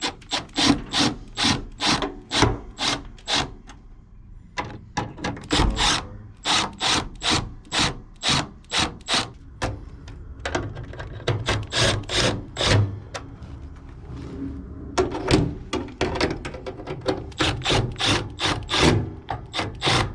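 Rhythmic scraping strokes, about three a second, in runs broken by short pauses about four, ten and fifteen seconds in.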